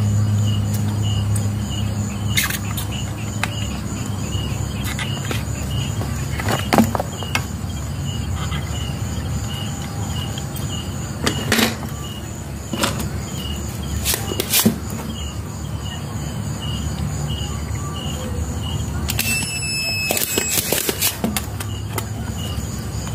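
Scattered clicks and knocks of a circuit board and soldering iron being handled while IGBT transistors are desoldered from a sewing-machine servo control board, with a cluster of clicks near the end. Underneath run a steady low hum and a faint high chirp repeating about three times a second.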